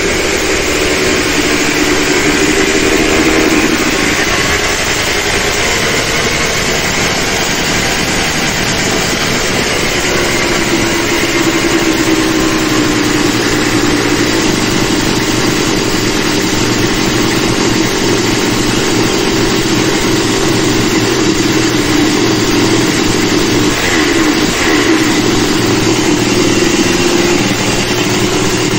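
400cc two-stroke motorcycle engine running on a test stand, its speed shifting a little as the carburettor is being set by hand.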